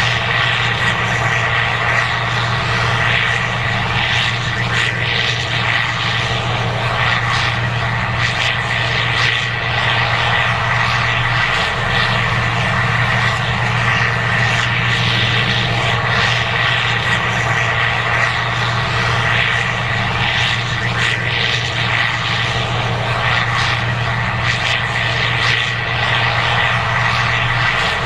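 Case IH 2188 Axial-Flow combine running steadily while harvesting corn: a constant engine drone with a steady high whine over it.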